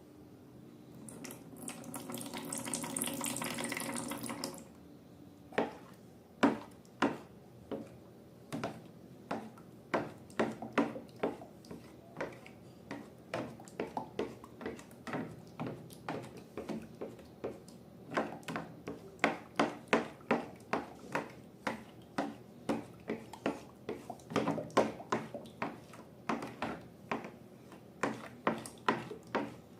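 A liquid pours for a few seconds, then slime is worked and stirred, giving a long run of sharp wet clicks, one or two a second and coming faster in the second half.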